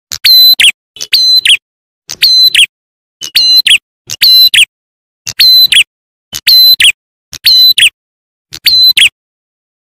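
Bird lure call (suara pikat) of the prenjak atas / ciblek klawu: a short, sharp, high chirping phrase repeated about once a second, nine times, each near-identical and separated by silence.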